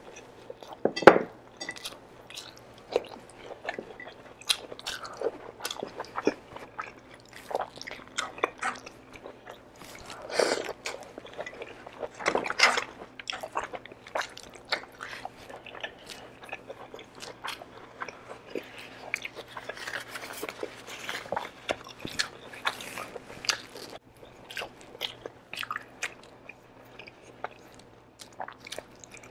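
Close-miked chewing and mouth sounds of beef kare-kare and rice eaten by hand, with irregular clicks and smacks, loudest about a second in.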